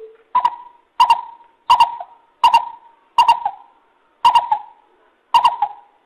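Greater coucal calling a run of about seven hoots, evenly pitched and spaced a little under a second apart, each note starting with a sharp click.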